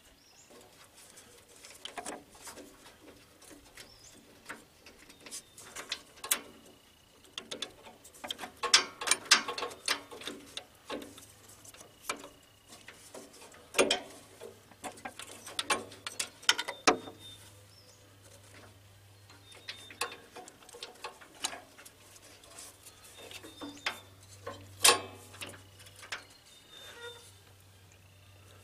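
Irregular clicks, taps and light rattles of an Onan generator's carburetor and its linkage being worked loose and handled: small metal and plastic parts knocking together, with a few sharper knocks.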